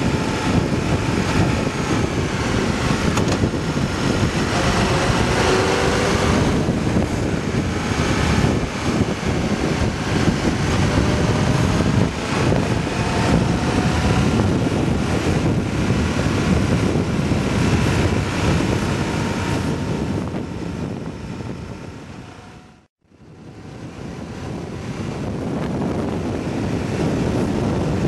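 Riding noise from a motorcycle on the move: wind rushing over the microphone with the engine running beneath it, its pitch rising a few seconds in. The sound fades out to silence about two-thirds of the way through and fades back in.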